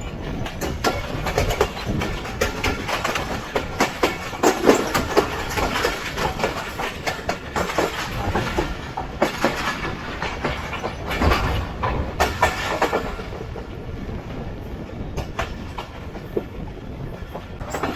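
Jaffar Express passenger coach wheels clattering over rail joints at speed: a dense run of clicks and knocks over a steady rumble, loudest through the middle and easing near the end.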